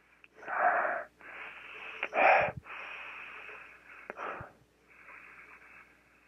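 Hard, wheezy breaths drawn through a cloth face mask with a HEPA vacuum-cleaner-bag filter insert, about six in a row, the loudest about half a second and two seconds in. This is a sniff test: air is pulled through the filter to try to smell a Sharpie marker held against it.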